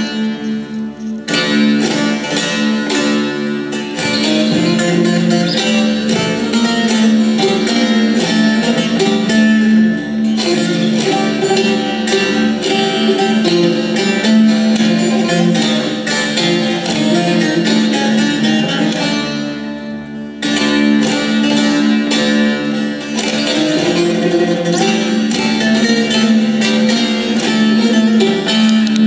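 Two long-necked bağlamas (saz) playing an Aegean folk dance tune from Aydın as a duet: a quick plucked melody over a steady drone. The level dips briefly about twenty seconds in.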